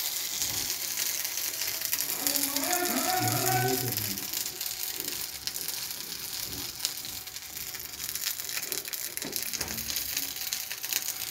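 Hot pot of rice-flake payasam sizzling with a steady hiss, with scattered small clicks and crackles through the second half.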